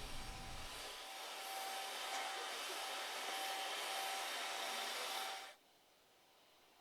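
Steady hiss-like background noise with a faint on-and-off tone, cutting off suddenly about five and a half seconds in.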